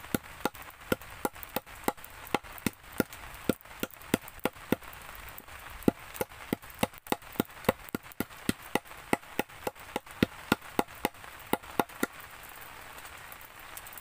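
Knife chopping quickly and steadily on a cutting surface, about three sharp knocks a second, stopping about twelve seconds in.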